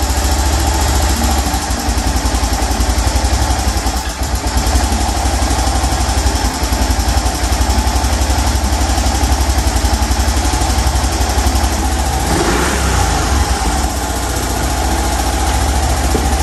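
Honda Cub's bored-up, port-polished 75cc single-cylinder four-stroke engine running at idle with a fast, even pulse, while its carburettor screw is being adjusted. Its note shifts briefly about twelve seconds in.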